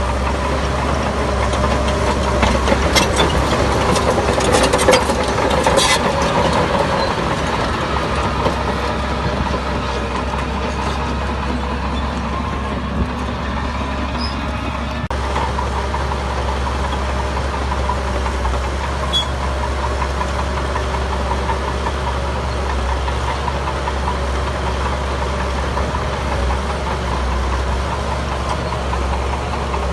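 Heavy diesel engine of earthmoving machinery running steadily, with a cluster of sharp metallic clanks a few seconds in.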